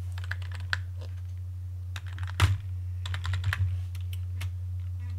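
Computer keyboard typing: keystrokes in a few short bursts of clicks, one key struck harder about two and a half seconds in, over a steady low hum.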